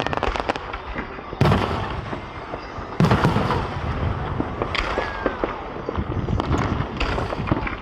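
Aerial fireworks bursting: a quick crackle at the start, then three big booms about one and a half seconds apart, with smaller pops and crackling between them.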